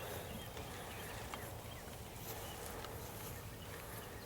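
Faint outdoor sound around a herd of beef steers: a low steady hiss with a few soft clicks and shuffles.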